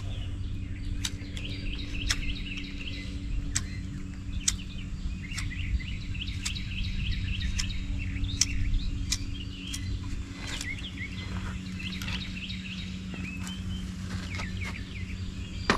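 Small birds chirping, with many quick repeated chirps and sharp clicks every second or so over a steady low hum.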